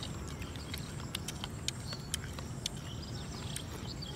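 Chewing and lip-smacking while eating mashed guava (guava vorta): a string of irregular wet mouth clicks, with birds chirping faintly.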